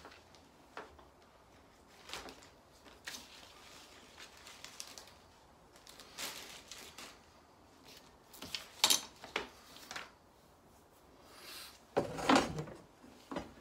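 Scattered clicks, knocks and light rattles of plastic lawnmower parts being handled during assembly of a Bosch Rotak 34-13, with louder knocks about nine seconds in and again near the end as the mower body is handled.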